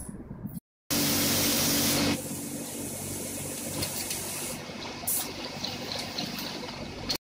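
Sony Xperia ZR video-recording audio fault: after a short silent gap, the recorded sound comes through at normal level for about a second, then drops quieter and turns into hiss and watery, bubbling noise. Another brief silent gap comes near the end.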